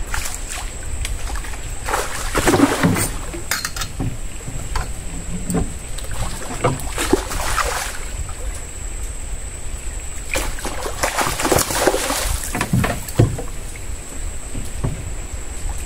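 A hooked fish thrashing and splashing at the water's surface beside the boat in several irregular bursts as it is played on the rod, with a thin steady high-pitched tone throughout.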